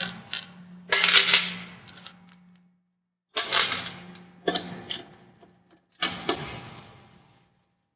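Small 8mm steel bolts rattling and clicking against the plastic hybrid-battery case as they are picked up and started by hand, in about five short bursts.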